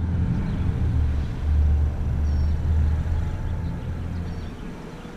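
A low, uneven rumble that fades away over the last second or so, with a few faint high chirps now and then.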